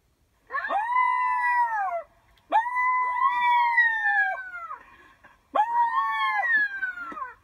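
Dog howling: three long howls, each held at a steady pitch and then sliding down at the end.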